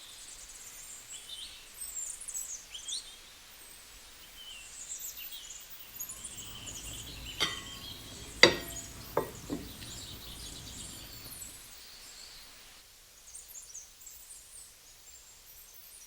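Birds chirping in the background throughout. Midway, four sharp clicks or knocks stand out over a low rumble, the loudest a little past eight seconds in.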